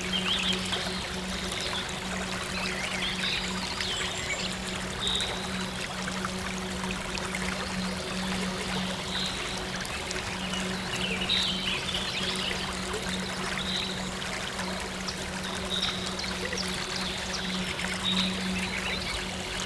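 Steady trickling, flowing water, with a soft low synth drone held underneath and scattered short high chirps.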